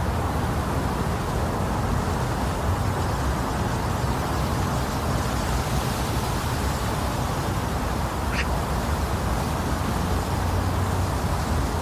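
Steady, deep rushing noise: a white-noise track made to imitate the sound inside the womb, used to lull a baby to sleep. It holds an even level throughout, with most of its weight in the low end.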